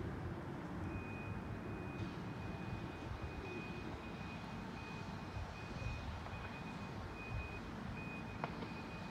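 A high electronic warning beeper sounding a near-continuous tone with short breaks, starting about a second in, over a low fluctuating rumble.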